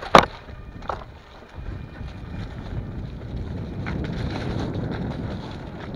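Mountain bike rolling fast down a dirt singletrack, with wind rushing over the action camera's microphone and the rumble of tyres and the bike's rattle. A sharp knock comes just after the start and is the loudest sound, with lighter clicks about a second in and near four seconds.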